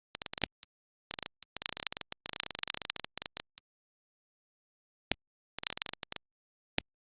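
Clusters of rapid, sharp clicks separated by dead silence: a long dense run in the first half and a shorter run near the end, with a few single clicks between.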